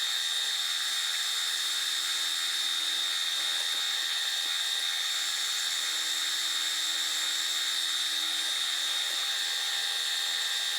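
Milling machine running with a steady high-pitched whine while milling the hex flats on a metal hydraulic fitting.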